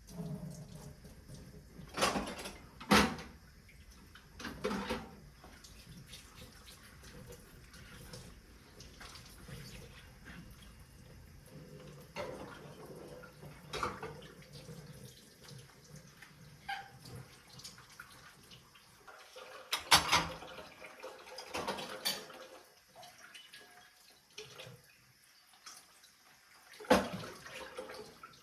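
Water splashing and trickling, broken by several sharp knocks and clatters.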